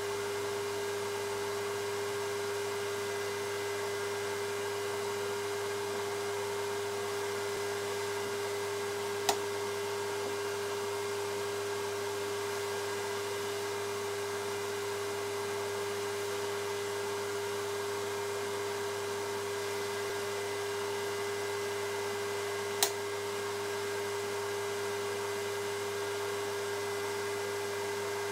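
VEVOR MIG-200D3 inverter welder switched on and idling, its cooling fan and electronics giving a steady hum with a held tone. Two short sharp clicks sound, about nine seconds in and again near twenty-three seconds, as the front-panel controls are worked.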